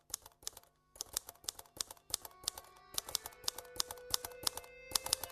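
Typewriter keys clacking in a quick, uneven run of several strikes a second. Held musical notes fade in about a second in and grow stronger toward the end.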